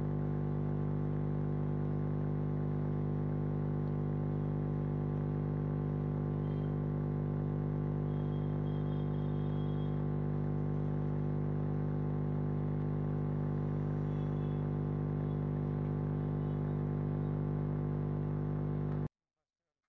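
Steady low electrical hum with a buzzy edge, unchanging in pitch and level, cutting off abruptly near the end.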